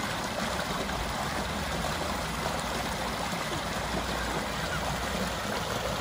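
Creek water pouring out of a rusted metal culvert pipe and splashing over rocks into a shallow stream: a steady rushing and burbling.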